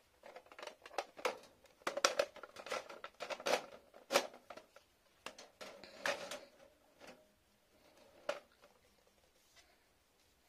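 Plastic skincare bottles and a clear plastic tray being set down in a metal mesh drawer: a run of light knocks and rattles, thinning out with a last knock about eight seconds in.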